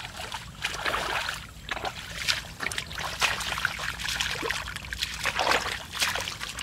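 Hands groping through shallow muddy water and mud while feeling for fish, making irregular sloshes and splashes.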